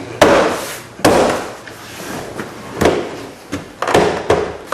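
Car interior door trim panel being pushed and knocked onto the door, a series of about five sharp thumps as it is pressed into place.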